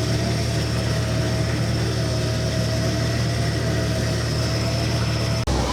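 Tow truck engine idling steadily with a steady whine over it, cut off suddenly about five seconds in.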